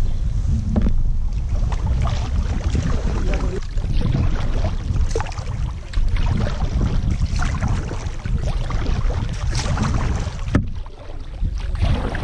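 Kayak paddle strokes splashing and water lapping at the hull, over a steady low rumble of wind on the microphone.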